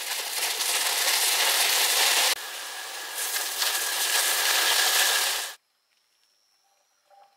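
Gopchang sizzling as it stir-fries on a hot round griddle pan over a gas burner, a loud steady hiss. It dips for a moment about two seconds in and cuts off suddenly a little after five seconds.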